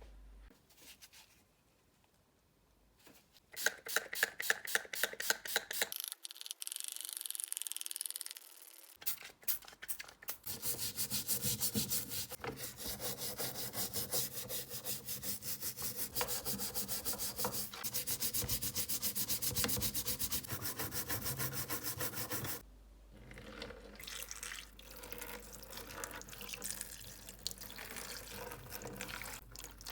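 Rapid, rhythmic back-and-forth rubbing strokes on a hard surface, in a short run, then after a pause a long steady run, then fainter strokes near the end.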